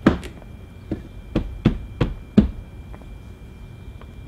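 Hands pressing and knocking a plastic A-pillar trim panel back into place over the tucked cable: about seven sharp knocks in the first two and a half seconds, then only soft handling.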